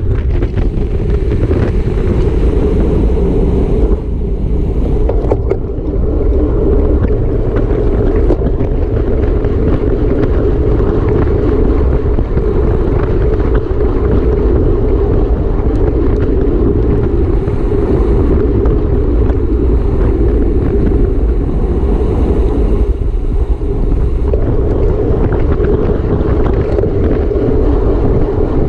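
Wind rushing over a bicycle-mounted camera's microphone while riding at racing speed: a loud, steady, unbroken rush, heaviest in the low end.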